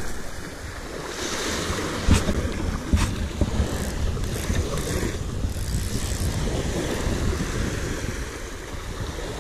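Small waves breaking and washing up a pebble beach, with wind buffeting the microphone. A couple of brief knocks come about two and three seconds in.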